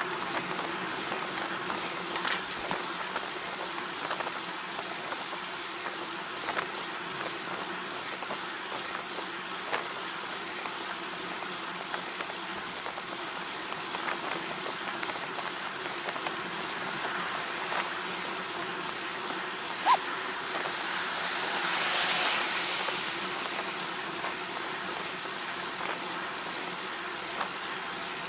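Steady running noise of a vehicle on the move, with a few sharp clicks and a hiss that swells and fades about twenty seconds in.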